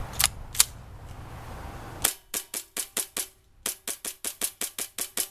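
KWA MP7 gas-blowback airsoft SMG running on high-pressure air, fired in semi-auto: two single shots, then two quick strings of sharp shots at about five a second, each shot a crack with the slide cycling.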